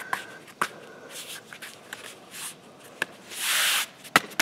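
Hand pressing and smoothing interlocking foam floor-mat tiles together: scattered soft clicks and taps of the foam and fingers, with one louder rustle lasting about half a second a little past three seconds in.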